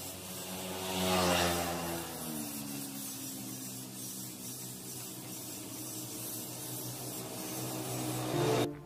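An engine running steadily with a pitched hum. It swells about a second in and drops in pitch soon after.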